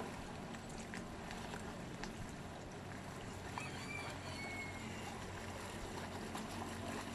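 Water lapping and trickling on the lake, with the steady low hum of a motor idling underneath.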